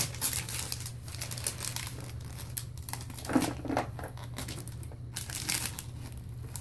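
Tissue paper crinkling and rustling in irregular bursts as it is pulled out of a gift box.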